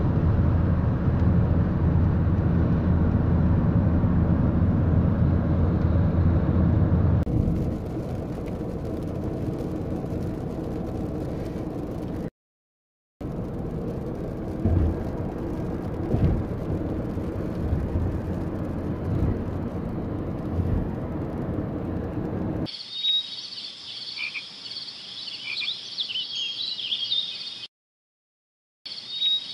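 Steady low road rumble of a car heard from inside the cabin, broken by an edit and a brief dropout. About three-quarters of the way through it gives way to a dense chorus of high chirping and croaking animal calls.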